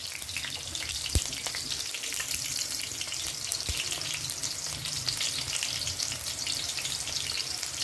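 Sliced red onions frying in hot oil in an aluminium wok: a steady crackling sizzle, with two brief low thumps about a second and nearly four seconds in.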